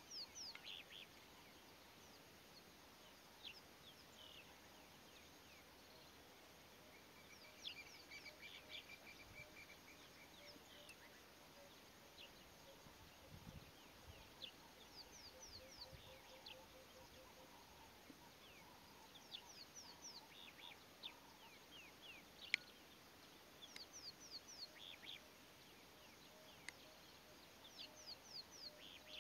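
Faint calls of small wild birds: short, high, downward-sliding chirps in quick runs, with a brief trill about eight seconds in. A single sharp click about two-thirds of the way through.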